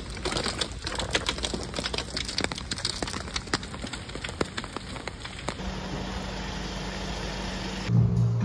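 Rain pattering in quick, irregular taps, likely on an umbrella. About two-thirds of the way through it gives way to a steadier outdoor hush, and music begins near the end.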